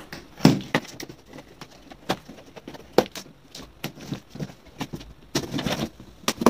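Plastic packing straps being pulled off a large cardboard carton: a scatter of sharp snaps and knocks, with a denser rustling run about five and a half seconds in.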